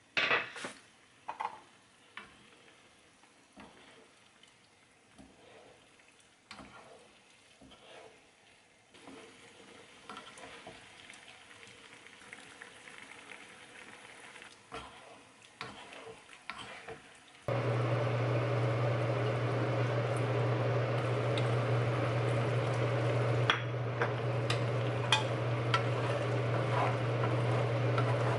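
Cooking in a frying pan of chili-sauce tofu: a spoon and spatula click and tap against the pan as the tofu is seasoned. About two-thirds of the way through, a steady low hum and simmering hiss start abruptly, with the spatula ticking and scraping as the sauce is stirred.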